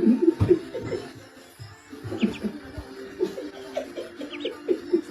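Background music made of short, quick notes.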